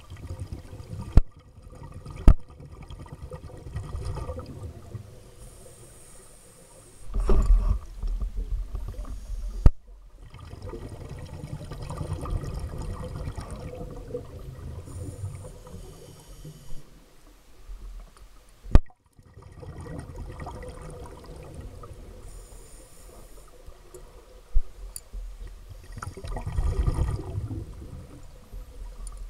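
Water noise picked up by a camera moving underwater: an uneven low rumble of water movement, louder about seven seconds in and again near the end, broken by a few sharp knocks.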